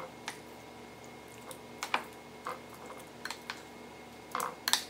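A serving spoon tapping and scraping against a crock pot and a glass baking dish as meat sauce is spooned over a layer of zucchini noodles: a handful of light, scattered clicks and taps at uneven spacing.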